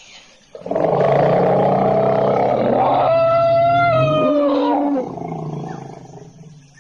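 Wild Asian elephant calling loudly for about four seconds: a rough, noisy call that turns into a clear, trumpet-like tone sliding down in pitch before it stops.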